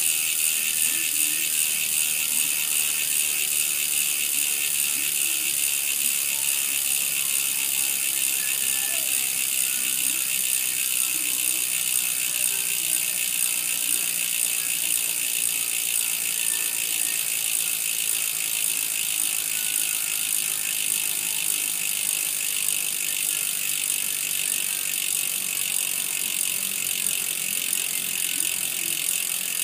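Amoeba 868 mountain-bike rear hub freewheeling: the wheel spins while the cassette stays still, and the freehub pawls ratchet in a fast, steady buzz of clicks. It grows slightly quieter over time.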